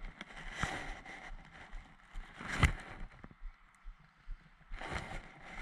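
Rustling of leaves, brush and clothing as someone moves through dense undergrowth, in irregular swells, with one sharp knock about two and a half seconds in.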